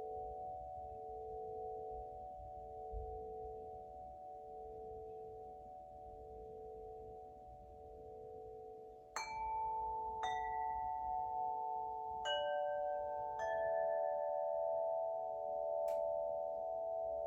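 Winter wind chime ringing: its tuned rods hum on with a slow pulsing shimmer as they fade, then it is set going again about halfway through, with about five fresh strikes that bring new bright, overlapping tones.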